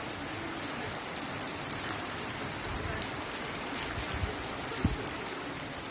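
Steady rain falling, an even hiss, with a few short low thumps, the sharpest near the end.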